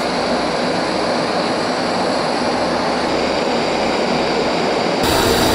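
Trangia gas burner on a gas canister burning at full flame under an aluminium kettle: a steady rushing hiss of the gas flame, with the water close to the boil. The sound turns brighter about five seconds in.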